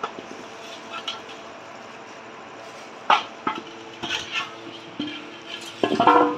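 Peeled small red onions knocking and clattering against a steel bowl as they are handled and dropped in, in a few separate knocks, the loudest about three seconds in and a denser cluster near the end.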